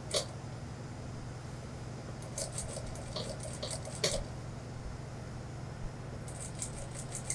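Industrial lockstitch sewing machine stitching a trouser seam in short, slow runs, its needle mechanism ticking in small clusters over a steady low motor hum, with a single sharper click about four seconds in.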